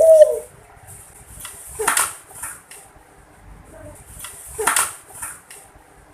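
A dove's coo trailing off at the very start, followed by two sharp rustling knocks about three seconds apart, with a few fainter ticks around them.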